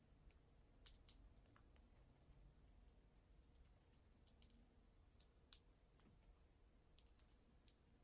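Scattered faint, irregular clicks of Amazon parrots' beaks working small plastic toys, with near silence between them.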